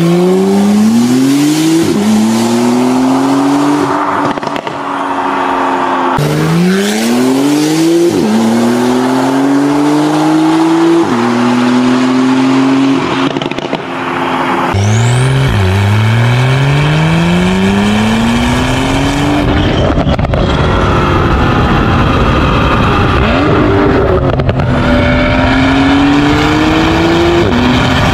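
Porsche 911 Carrera 4S (991.2) twin-turbo flat-six with a full Fi aftermarket exhaust, accelerating hard in several runs. Each pull rises in pitch and drops sharply at an upshift.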